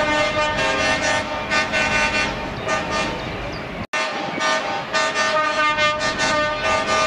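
Truck horns sounding in a rapid series of short blasts, several pitches at once. The sound cuts out for an instant about four seconds in, then the blasts carry on.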